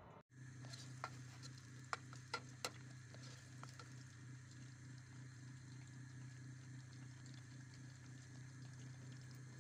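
Chopped onion frying gently in vegetable oil in a pot, a faint steady sizzle over a low hum, with a few sharp clicks of a ladle against the pot in the first few seconds.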